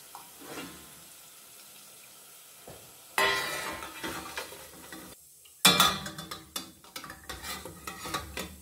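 Hot fried potato sticks sizzling in oil as they are scooped out with a metal skimmer and tipped into a stainless pressure-cooker steamer basket over the pot, with metal clinks and scrapes against the pot and basket, the oil draining through its holes. Two loud spells of sizzling and clatter, each starting suddenly: one about three seconds in, the other just before the middle and lasting to the end.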